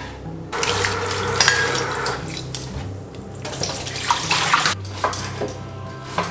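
Tap water running into a kitchen sink in two spells, with dishes and cutlery clinking, over soft background music.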